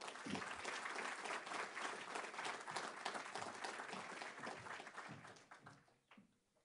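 Audience applauding, dying away after about five and a half seconds.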